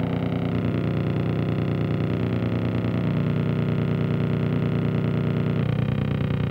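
Analog electronic noise: a dense, rapidly pulsing buzz drone of many stacked tones, heaviest in the low range. Its texture shifts about half a second in and again near the end.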